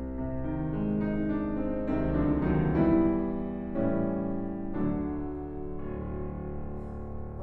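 Solo piano playing a slow passage of sustained chords in a classical chamber piece for bassoon and piano, swelling to its loudest about three seconds in.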